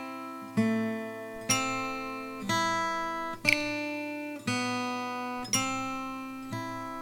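Music: acoustic guitar chords strummed about once a second, each ringing out and fading before the next, the chord changing between strums.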